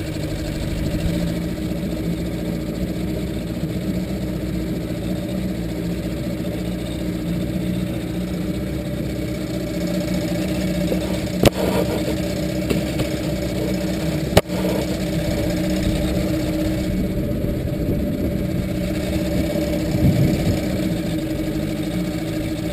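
Outboard motor running at a steady pitch, pushing a small aluminium skiff. Two short sharp knocks come around the middle, about three seconds apart.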